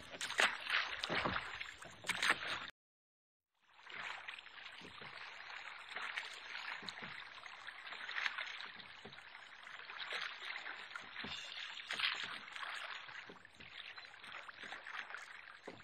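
Moving floodwater, a steady trickling and lapping, broken by a brief gap of silence about three seconds in.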